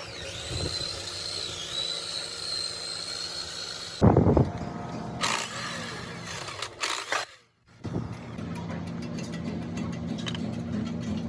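Workshop power tool running with a steady high whine that dips briefly, then several sharp metal knocks, then a machine running with a steady low hum.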